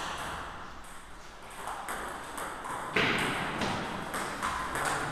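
Table tennis ball ticking off paddles and the table in a rally, a string of sharp clicks starting about a second and a half in, the loudest about three seconds in.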